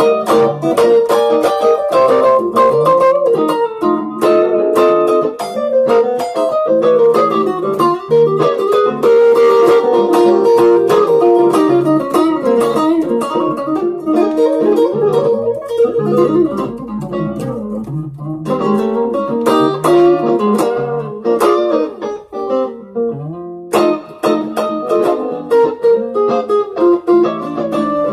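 Electric guitar, a Squier Strat-style, played through a Zoom G1on multi-effects patch: a B-flat blues with quick picked single-note runs. The playing thins for a moment about three quarters of the way through, then picks up again.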